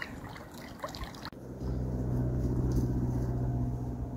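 Floodwater trickling and lapping for about a second, then an abrupt change to a steady, low engine hum of a motor vehicle running nearby.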